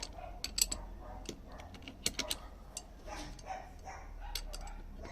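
Irregular metallic clicks and taps of an 11 mm wrench working a nut on the car, in small one-handed tightening strokes.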